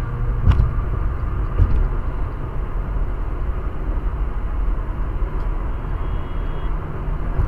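Steady road and tyre noise of a car cruising on a highway, heard from inside the cabin, with two short knocks about half a second and a second and a half in.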